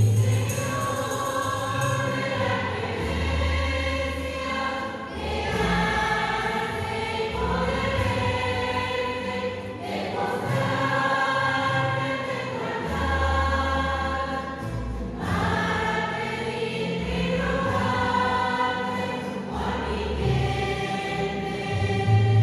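Church choir singing a hymn in long held phrases, over a low bass accompaniment.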